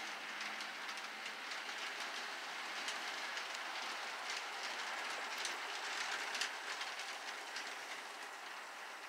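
Small-scale model freight train running around its track: a steady rolling hiss from the wheels and motor, with many light, irregular clicks as the wheels pass over the rail joints, easing off a little near the end.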